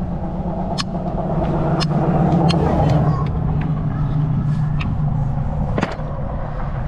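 An engine running steadily at a constant idle, with a few sharp clicks over it.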